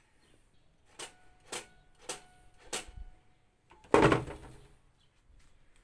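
Strings of an old, unrestored mandolin plucked four times about half a second apart, a note ringing on between the plucks, then a louder strum across the strings about four seconds in that dies away.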